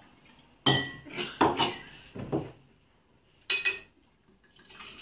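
Dishes and utensils clattering: a run of sharp clinks and knocks in the first half, then a brief pair about three and a half seconds in.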